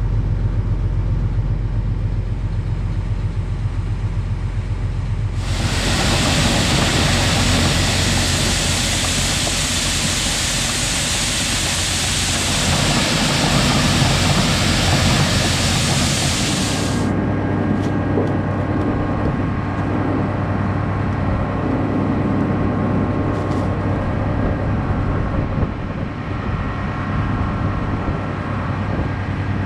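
Large farm tractor's engine running steadily under way. A loud hiss cuts in sharply about five seconds in and stops just as sharply about eleven seconds later, and the engine hum changes in tone afterwards.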